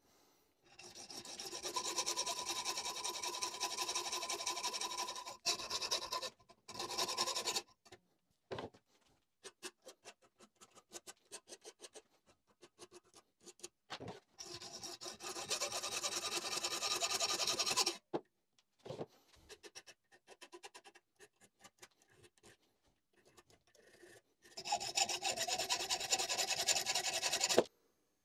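A 5 mm brass rod clamped in a vise being worked by hand with a file and a hacksaw. Several long stretches of fast, even rasping strokes alternate with runs of short, separate strokes.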